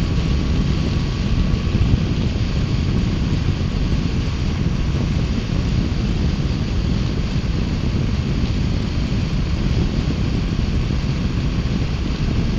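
Triumph Bonneville T120's 1200 cc parallel-twin running at a steady cruise, under a steady rush of wind and road noise.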